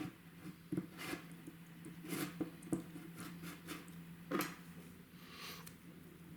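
Faint scattered clicks and rustles of small parts being handled, over a steady low hum.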